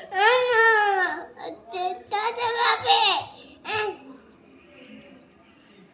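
A young child's high-pitched voice making several drawn-out, wordless calls, stopping about four seconds in.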